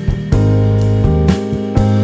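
Jazz background music with held bass notes and a steady beat.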